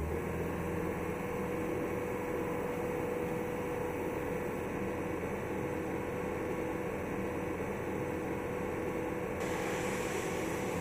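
Isuzu Elf drill truck running with its crane hydraulics working as the boom swings the auger: a steady whine over a low engine hum. A hissing noise joins about nine and a half seconds in.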